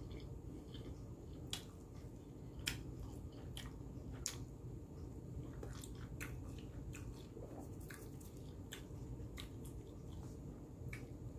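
Close-miked chewing of a soft tortilla wrap filled with beef, egg and cheese: irregular wet mouth clicks and smacks over a steady low hum.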